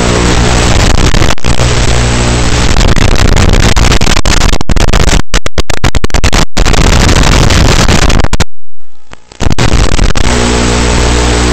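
Loud static hiss and a steady buzzing hum on the audio of an analog FPV video link. Midway it breaks up into crackling dropouts and briefly cuts out as the micro drone's signal weakens behind a building, then the steady hum and hiss return.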